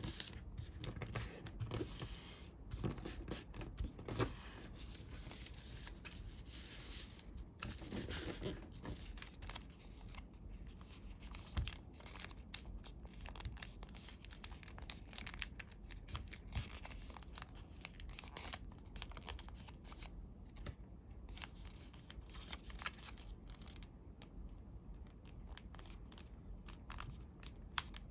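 Coloured origami paper being handled and folded by hand: irregular rustling and crinkling with short crisp clicks as the creases are pressed.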